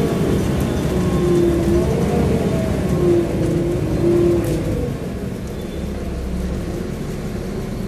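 Interior sound of a Volvo B7LA articulated bus with a ZF gearbox on the move: engine and drivetrain running, with a whine that wavers up and down in pitch, easing and growing quieter about five seconds in.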